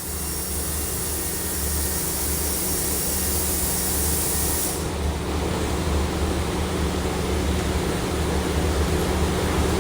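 Car engine idling steadily, a constant low hum with a hiss over it that fades about halfway through.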